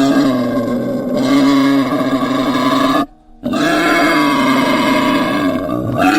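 Wild boar calling: two long, loud calls of about three seconds each, then a brief third call near the end.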